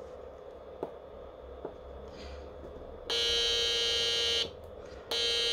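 Small speaker of a breadboard oscillator (synthesizer) circuit sounding a steady, buzzy mid-pitched tone, in two bursts: about a second and a half, a short gap, then again near the end. A few faint clicks come before it.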